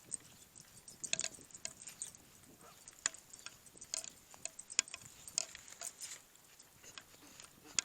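Irregular light clicks and metallic clinks, one or two a second, from walking a dog on a leash: footsteps and the jingle of collar tags and leash hardware.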